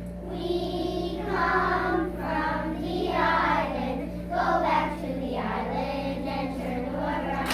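A group of young children singing a song together in a choir, in phrases with short breaks between them.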